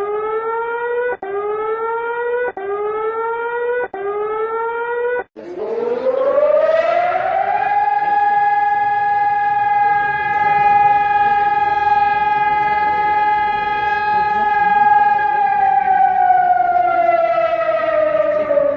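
Siren alarm: four quick rising whoops, each a little over a second long. Then a civil defense siren winds up to a steady high tone, holds it for about eight seconds, and begins to wind down near the end.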